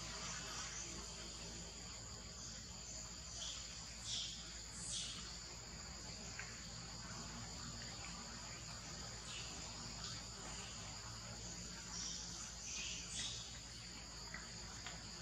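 Steady high-pitched drone of chorusing insects, with a few brief high calls about four to five seconds in and again around thirteen seconds in.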